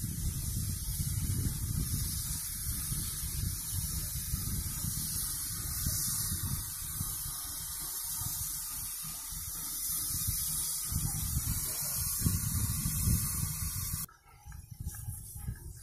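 Ol49 steam locomotive letting off steam in a loud, steady hiss over a low, uneven rumble. The hiss cuts off suddenly near the end, leaving a few faint clicks.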